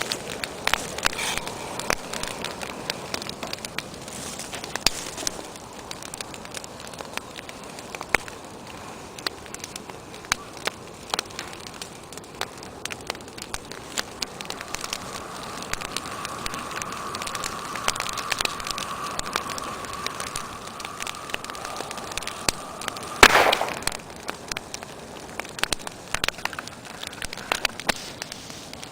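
Wood fire crackling, with irregular sharp pops throughout. A thin steady whistle sounds through the middle, and about 23 seconds in there is one loud pop.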